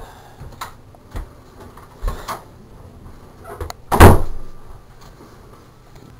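A door shutting with a loud thud about four seconds in, after several lighter knocks.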